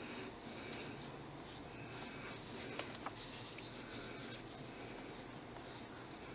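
Faint scratchy rubbing of fingertips working bronze pigment powder over a polymer clay sculpture held in the hand, with two light clicks about three seconds in.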